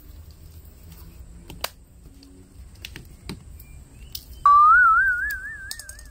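A loud whistle about four and a half seconds in: one tone that slides up, then warbles for about a second and a half before stopping. Before it, faint clicks and crinkles as Mentos rolls are unwrapped.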